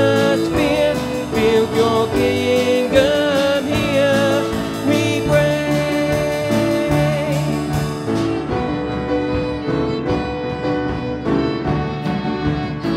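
Live church worship music: a band of instruments playing with voices singing, wavering held notes in the first few seconds, and the music carrying on steadily.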